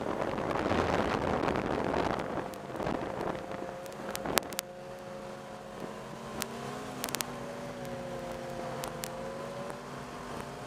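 Snowmobile engine running at cruising speed, heard from the rider's own sled, with a loud rush of wind and snow over the microphone for the first two seconds. It then settles into a steady engine note that dips and rises slightly about seven seconds in, with a few sharp clicks and knocks along the way.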